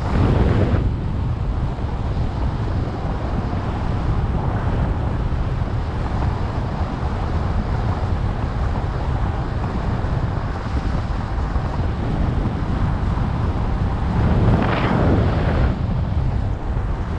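Airflow buffeting the microphone of a paraglider pilot's harness camera in flight: a steady low rumble of wind noise that swells in gusts about a second in and again near the end.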